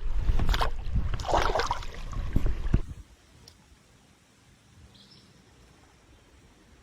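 Splashing water and knocking, rumbling handling noise at a kayak as a hooked fish is brought in. It stops suddenly about three seconds in, leaving quiet creek ambience with a single short bird chirp.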